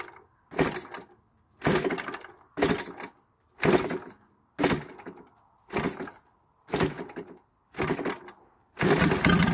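Moki 250 radial engine being turned over for a start, giving a short burst about once a second, about nine in all, then catching near the end and running steadily.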